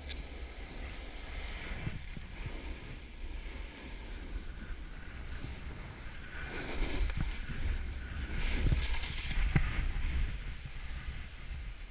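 Snowboard sliding and scraping over wind-packed snow, with wind buffeting the camera microphone. From about six seconds in it gets louder, with several knocks and thumps as the board rides over the snow slab breaking up into blocks at the start of a slab avalanche.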